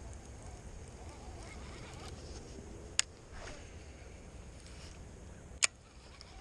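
Two sharp clicks about two and a half seconds apart as the body-worn action camera is handled and repositioned, under a low steady rumble on the microphone.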